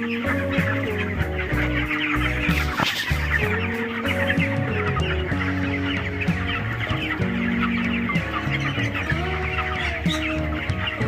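A flock of 24-day-old broiler chicks cheeping continuously, many short overlapping chirps, over background music.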